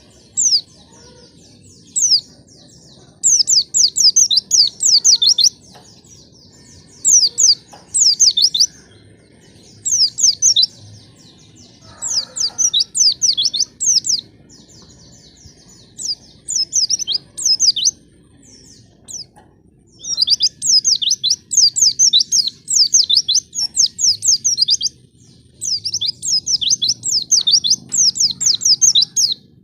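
White-eye (pleci) song: rapid, chattering phrases of quick downward-sweeping high notes, in bursts of one to three seconds with short pauses between, played as a lure song to set other white-eyes singing.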